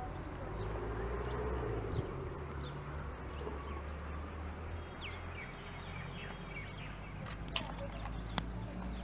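Birds chirping and calling all around, many short chirps over a low steady rumble, with a few sharp clicks, one about two seconds in and two near the end.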